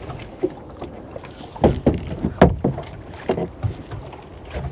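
Irregular sharp knocks and clatters on a small fishing boat as the net is worked aboard, bunched in the middle with a few more shortly after.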